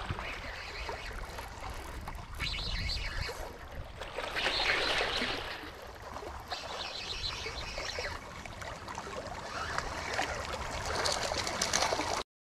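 Water splashing and trickling in irregular surges, with a low wind rumble on the microphone; the sound cuts off suddenly near the end.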